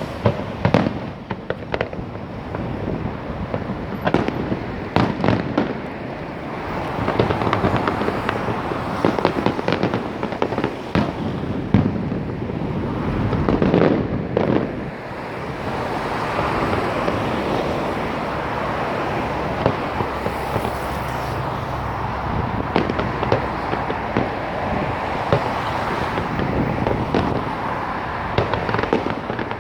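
Fireworks exploding: a run of sharp bangs and booms through the first half, then a dense, continuous barrage of crackling bursts with occasional louder bangs.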